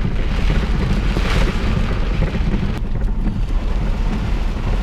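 Heavy rain falling hard on a car, heard from inside, with a steady low rumble underneath; the hiss thins a little about three seconds in.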